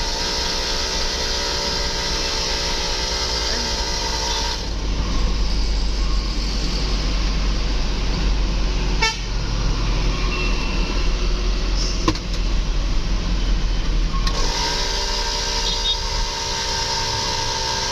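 Multi-trumpet telolet air horn holding a steady chord of several notes, which cuts off about four and a half seconds in. Vehicle engine and road rumble follow, with a couple of sharp clicks. The horn chord comes back near the end, its pitch rising slightly as it starts, and holds.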